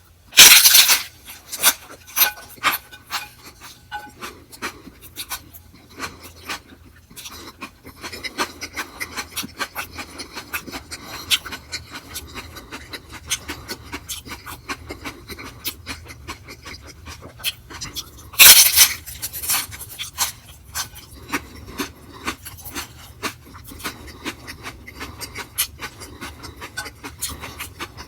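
Close-miked eating: steady wet chewing with many small mouth clicks and crackles, broken by two louder noisy bursts, one right at the start and one about two-thirds of the way through.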